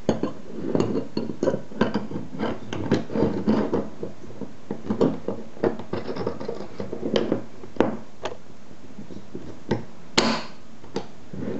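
Metal clicks, knocks and scraping as a homemade bolt-action rifle action is handled and its bolt worked, with parts knocking on a wooden table. The handling is busy at first, then sparse, with one sharp louder click a little after ten seconds in.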